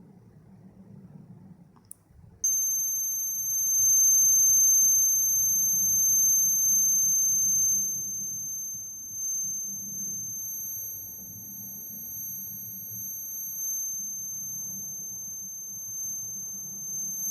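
MSP430 microcontroller alarm buzzer sounding one continuous high-pitched tone: the timer interval has run out and the alarm is going off. It starts about two and a half seconds in, just after a click, and is louder for its first five seconds or so, then softer.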